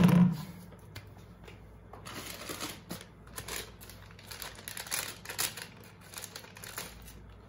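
Faint, irregular rustling and light clicks of small parts being handled on a cloth-covered table.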